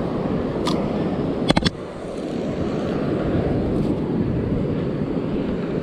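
Steady wind buffeting a body-worn camera's microphone on an open beach, with surf noise underneath. About a second and a half in comes a quick cluster of sharp clicks as the spinning rod is handled and set in its sand-spike holder, with one lighter click just before.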